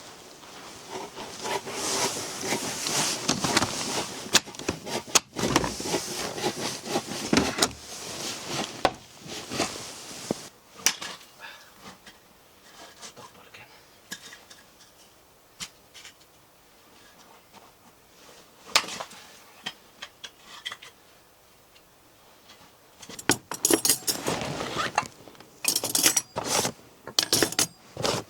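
Metal camp gear being handled, clinking and rattling in bursts, with a quieter stretch of only occasional clicks in the middle.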